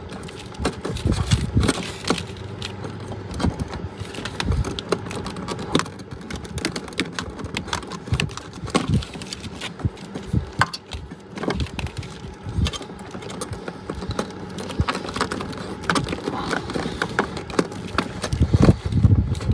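Irregular clicks, knocks and rustling of hands working electrical wiring and cable connectors loose inside a sheet-metal electrical box, with a few low thuds.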